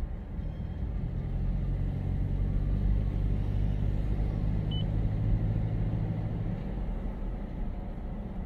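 A car's engine and tyres heard from inside the cabin while driving: a steady low rumble that eases a little near the end.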